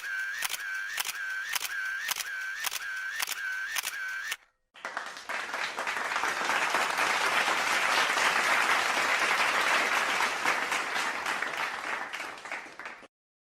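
Camera shutter clicking over and over, about two clicks a second, for about four seconds. After a brief gap, applause that swells, holds and fades out near the end.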